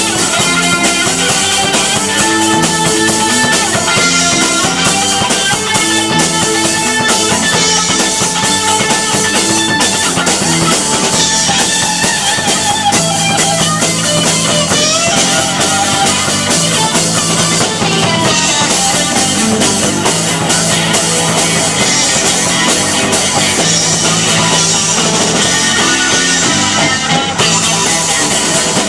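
Rock band playing live: electric guitar, bass and drum kit in a steady, loud instrumental passage.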